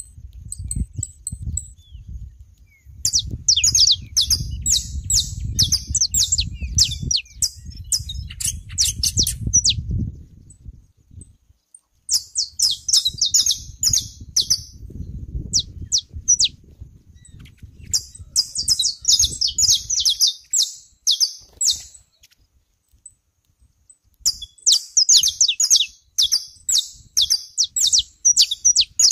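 Saffron finches singing: several phrases of fast, high chipping notes with pauses between them. A low rumble runs under the first two-thirds.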